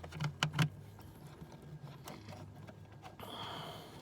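Handling noise from work on plastic interior parts: three or four quick clicks and knocks in the first second, then a short faint scrape about three seconds in.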